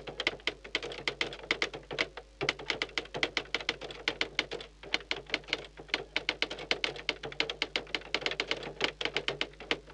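Typewriter sound effect: rapid keystroke clicks, several a second, broken by two short pauses, as text is typed out on screen.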